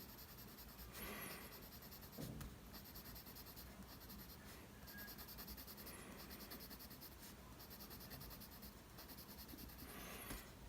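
Faint scratching of a mechanical pencil lead on paper as shading strokes are laid down, swelling slightly about a second in, about two seconds in and near the end.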